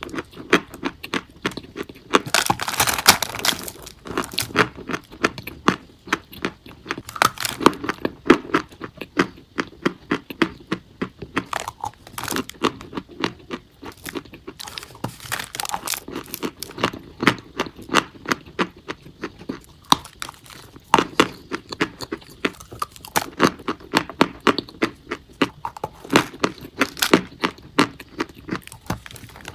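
Chalk being bitten and chewed close to the microphone: a run of sharp, irregular crunches and snaps, with a longer grinding crunch about two to four seconds in.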